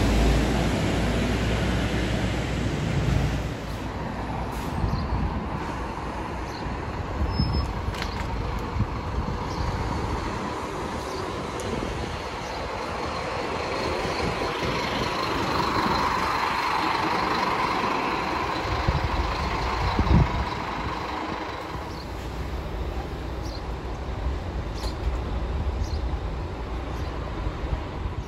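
Large vehicles running past: a steady mix of engine and rolling noise that swells and fades over several seconds, with a sharp knock about twenty seconds in.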